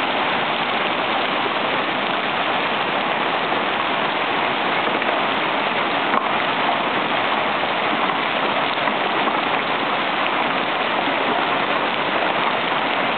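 Marble-sized hailstones falling hard on a paved street: a dense, steady clatter and hiss, with one sharper knock about six seconds in.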